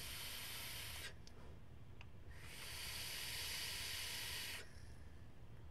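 A draw on a Horizon Tech Vertex Plus rebuildable tank atomizer: air hissing through its wide-open air holes for about a second, a short pause, then a longer hissing exhale of vapor lasting about two seconds.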